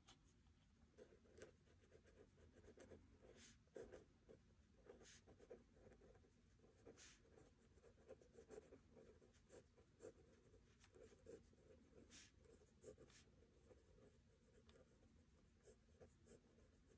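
Faint scratching of a pen on notebook paper as someone writes by hand, in short irregular strokes with an occasional light tick.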